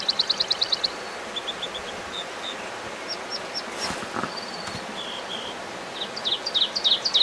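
Small bird singing: a rapid trill of high chirps about ten a second, then scattered single chirps, then another fast trill near the end, over a faint steady hiss.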